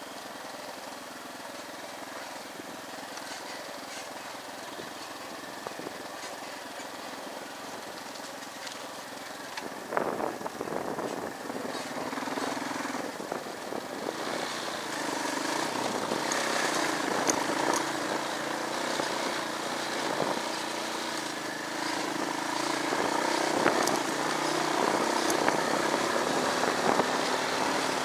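Motorcycle engine running while the bike is ridden over a bumpy dirt trail, with scattered knocks and rattles. It gets louder about ten seconds in.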